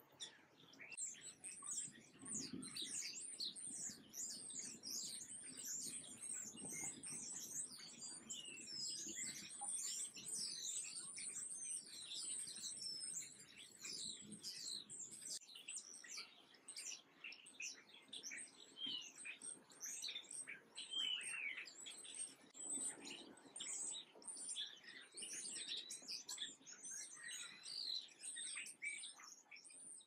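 A dense chorus of small songbirds chirping and twittering, many short high calls overlapping without a break.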